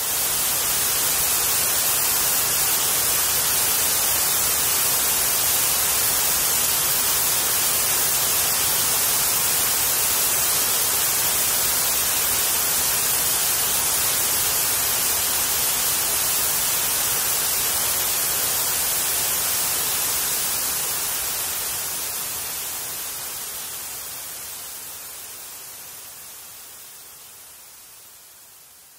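Loud, steady static hiss like white noise, with no tone or rhythm in it, that slowly fades away over the last several seconds.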